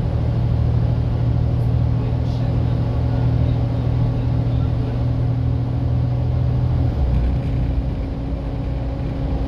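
Volvo B7TL bus with its six-cylinder diesel engine running steadily under way; its note changes about seven seconds in.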